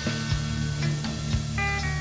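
Live rock band playing: electric guitar chords held over a steady bass line, with a few drum strikes.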